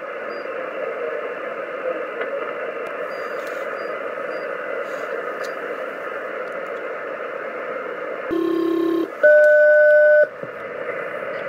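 Shortwave receiver in upper sideband, tuned to an HF air traffic control channel, giving a steady hiss of static between transmissions. About eight seconds in, a SELCAL call sounds: two pairs of steady two-note tones, each about a second long. The second pair is louder and sets off a selective-calling alert in an aircraft.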